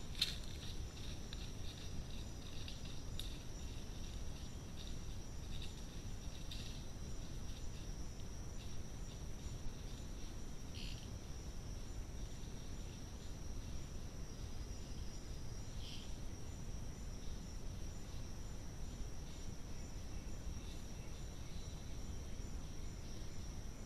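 Steady high-pitched drone of an insect chorus in tropical forest over a low hiss of background noise, with a few faint rustles and ticks in the first seconds.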